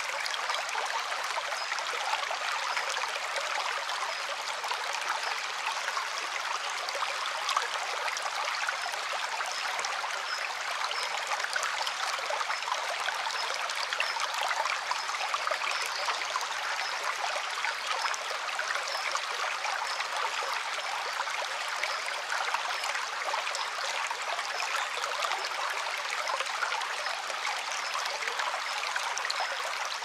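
Shallow stream running over stones and pebbles, a steady trickling rush of water without pause.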